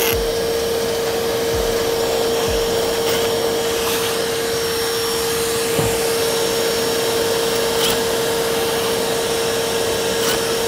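Vacuum cleaner running steadily with an even hum, held close to suck up metal shavings while a drill hole in a steering wheel's metal frame is deburred. A few faint clicks sound over it.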